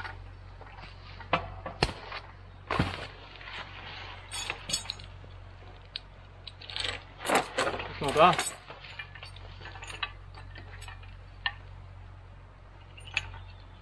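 Metal choker hooks and chains clinking and jangling in irregular knocks as a load of logs is hooked up to be pulled out by the logging cable.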